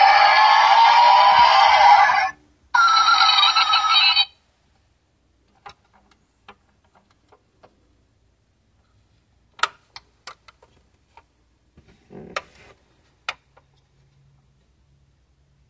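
The 1:18 diecast Porsche Panamera model's sound chip playing a tinny electronic car sound through its small built-in speaker. It breaks off about two seconds in, plays a short second burst and stops at about four seconds. After that come scattered light clicks as the model's doors are opened.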